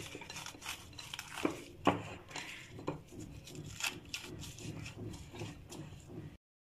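Cling film being pressed and rubbed around the rim of a ceramic bowl by hand, with scattered rustles and a few sharp clicks. The sound cuts off suddenly near the end.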